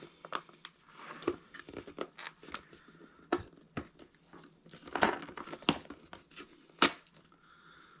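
Cardboard packaging insert crinkling and scraping as a hard rubber-plastic cable grommet is pried out of it by hand, with a string of small clicks and several sharp snaps about five to seven seconds in.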